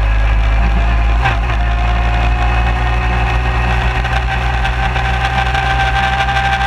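Suzuki QuadSport 250 quad's engine running steadily while riding over grass, heard from low at the front of the machine, with a steady whine over the engine note. A single brief knock about a second in.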